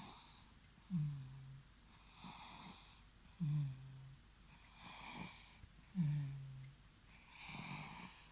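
A three-month-old baby snoring in its sleep. Each breath cycle has a short, low-pitched snore that starts sharply and a softer hissing breath, repeating about every two and a half seconds, three times over.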